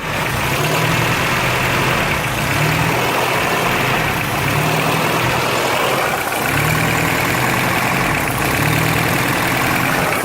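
Car engine idling with a steady hiss, the sign of a vacuum leak, and a low drone that swells and fades several times.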